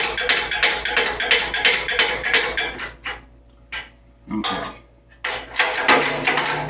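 Rapid metallic clicking and clanking of shop work as a bearing is pressed onto an Eaton M90 supercharger shaft. It drops away for about two seconds in the middle, then resumes.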